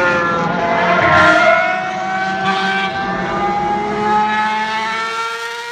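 Historic Formula One car's engine running at high revs. It drops in pitch as it passes at the start, then pulls away with its pitch slowly rising while the sound gradually fades.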